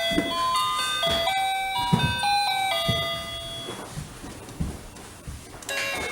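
Electronic musical doorbell playing a chiming melody of single held notes. The tune fades in the middle and a new, louder phrase starts near the end. Low thumps sound under it about once a second.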